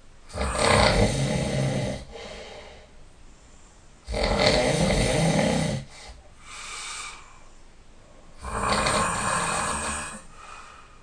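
A person snoring loudly: three long snores about four seconds apart, each followed by a shorter, softer breath sound.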